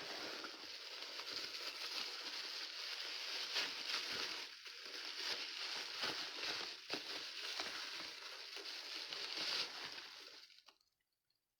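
Packing wrapping being crinkled and rustled by hand while figurines are unwrapped: continuous irregular crackling that dies away about a second before the end.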